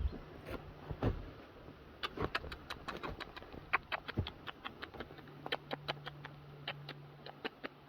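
Rain dripping, irregular sharp taps several a second, with a faint steady low hum coming in about five seconds in.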